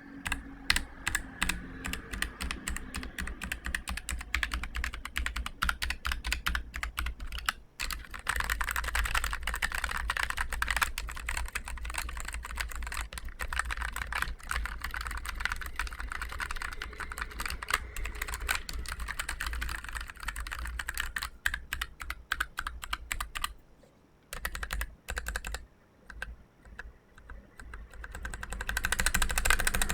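Typing on a Keychron K3 Pro low-profile mechanical keyboard with Gateron low-profile Brown tactile switches: a fast, continuous clatter of keystrokes. It breaks briefly about a quarter of the way in. About three-quarters through it thins to scattered presses with short quiet gaps, then speeds up again near the end.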